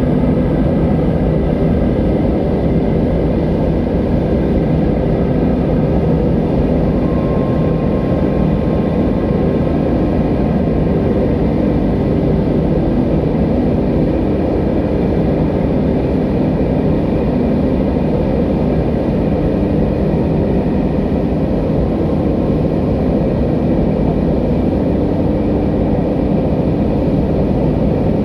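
Whitewater river rapids rushing over boulders: a steady, loud, deep rush of water.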